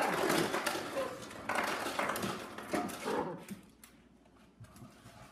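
Schnauzer whining and yipping while begging on its hind legs, in three bursts over the first three seconds, then quieting.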